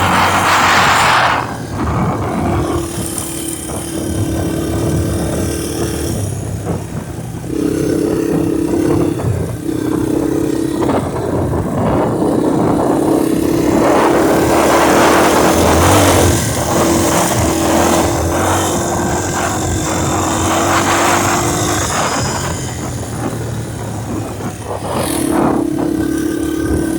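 Wind buffeting the microphone in repeated gusts over the steady drone of a moving vehicle, whose level tone drops out briefly several times.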